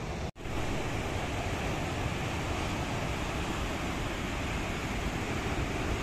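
Heavy surf breaking over a rocky shore, a steady rushing wash of whitewater, with wind buffeting the microphone. The sound cuts out for a split second near the start.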